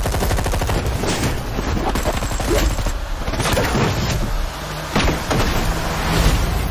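Action film-trailer sound effects: a rapid rattle of evenly spaced cracks like automatic gunfire in the first second, then a series of heavy booms and impacts over a low rumble.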